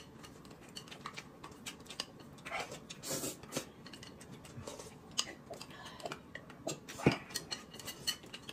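Quiet eating sounds: chewing and slurping of noodles and soup, with scattered light clicks of a spoon on a glass bowl and chopsticks on a plate.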